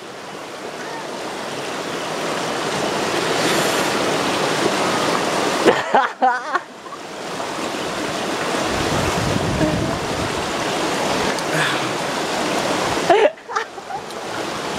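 Steady rush of a shallow stream, swelling over the first few seconds. A person's voice breaks in briefly twice.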